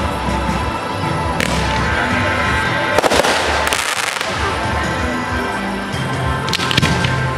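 Fireworks display: shells bursting with sharp bangs and crackle, a report about a second and a half in, a cluster of loud bangs about three to four seconds in, and another pair near the end, over background music.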